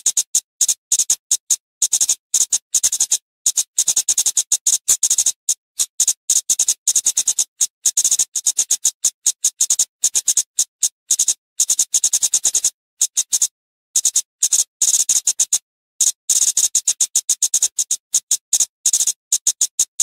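Flowerpecker (cabai/kemade) calls: a rapid stream of short, high, sharp ticking notes in dense runs, broken now and then by short pauses.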